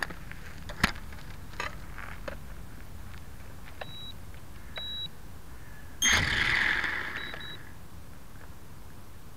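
Several short, high electronic beeps a second or more apart. A sharp knock comes about a second in, and a louder rushing noise lasts about a second and a half just past the middle.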